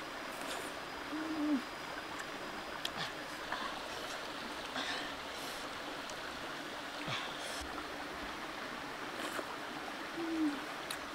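Shallow rocky stream running steadily, with a few faint clicks and two short low hum-like tones about nine seconds apart.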